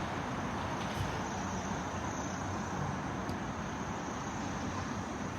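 Steady background noise, an even rumble and hiss with no distinct events, and a couple of faint clicks.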